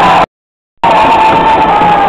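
Loud crowd of spectators shouting and chanting, with wavering sustained voices over the din. A half-second dropout to total silence breaks it just after the start.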